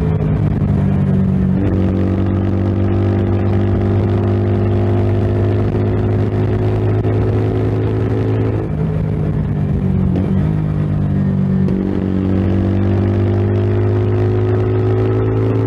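Kreidler Dice CR 125i 125 cc single-cylinder motorcycle engine running. Its pitch steps up, holds, drops about halfway through, then climbs slowly again near the end.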